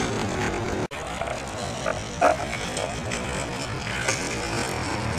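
Skateboard wheels rolling over rough asphalt, with a few sharp clacks of the board, the loudest about two seconds in. The sound cuts out completely for a moment about a second in.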